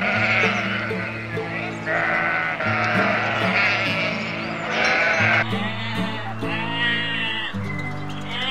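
A flock of sheep bleating, many voices overlapping until about five seconds in, then a few separate bleats, over background music with held low notes.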